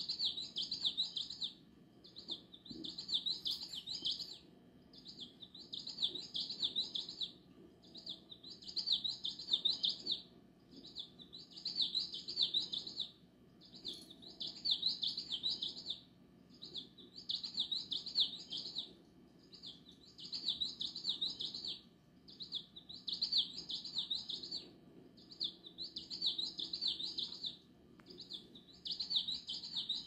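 Electronic bird cat toy playing recorded bird chirps in a loop: a burst of high chirping lasting about a second and a half, repeated at even intervals of about three seconds, over a faint low hum.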